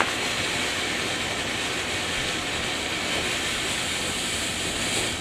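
Ground fountain firework burning, giving a steady hiss of spraying sparks.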